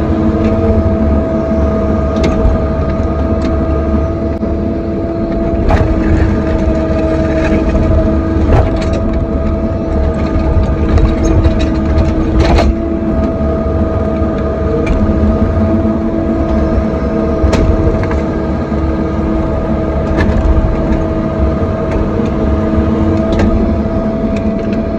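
Excavator running steadily while digging, its engine holding a constant pitch, with a few sharp knocks scattered through.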